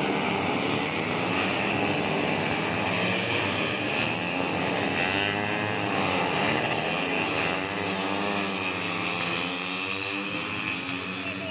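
Racing 150cc four-stroke underbone motorcycle engines running at high revs, the engine pitch rising and falling in several sweeps.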